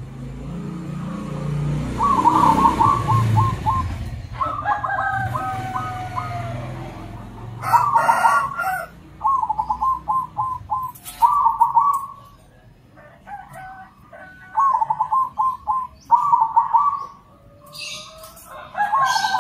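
Several zebra doves (perkutut), local and crossbred birds, answering each other in turn. Each phrase is a quick run of short cooing notes, and about six phrases come at a few seconds apart, some overlapping where two birds call at once. A low rumble sits under the first few phrases.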